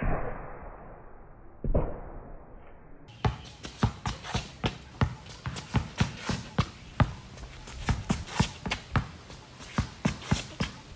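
A basketball dribbled hard on an outdoor concrete court, sharp bounces in a quick steady rhythm of about three a second. For the first three seconds the sound is muffled and there are only a couple of bounces; after that it is clearer and the bounces come steadily.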